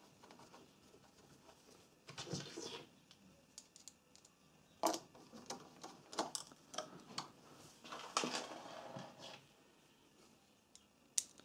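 Faint clicks and scrapes of a hand screwdriver turning the screws of the centrifugal oil filter cover on a 156FMI motorcycle engine, a Honda CG-type single, with two short scratchy rasps about two seconds in and again near eight seconds.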